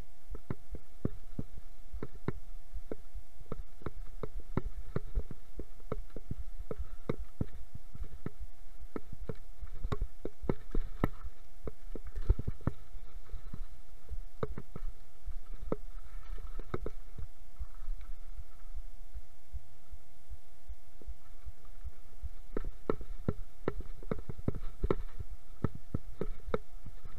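Mountain bike descending a rough, leaf-covered forest trail: a low rumble with irregular knocks and rattles as the bike and camera jolt over roots and stones, busiest around a third of the way in and again near the end. A faint steady hum runs underneath.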